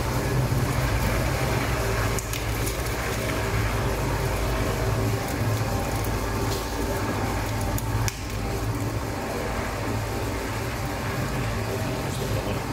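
Kolbe MW52-120 mixer-grinder running under load, its worm pushing meat out through the cutting plate with a steady low hum and grinding noise. A couple of brief ticks and small dips in the sound come about two and eight seconds in.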